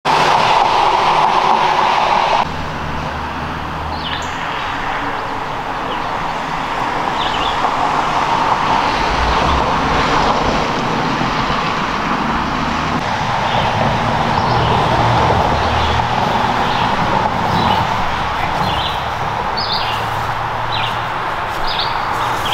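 Steady outdoor rumble like passing road traffic, a little quieter after about two seconds, with short high bird chirps scattered through from about four seconds in.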